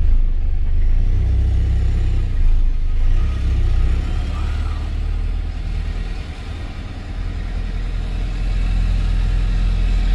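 Lorry motorhome's diesel engine running on the move, heard from inside the cab as a heavy, low rumble that eases a little about two-thirds of the way through and then builds again.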